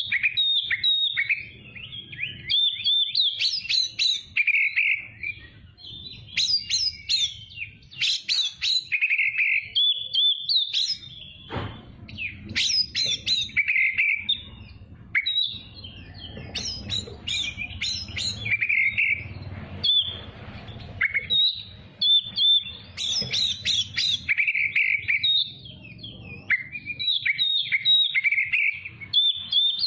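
Oriental magpie-robin (kacer) singing continuously, a fast, varied run of whistles, trills and chattering phrases, with a short buzzy note returning every four to five seconds.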